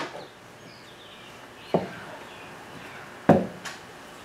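A few sharp knocks as air-spring kit parts (steel plates and hardware) are handled and set down in a pickup bed, the loudest about three seconds in, with faint bird chirps in the background.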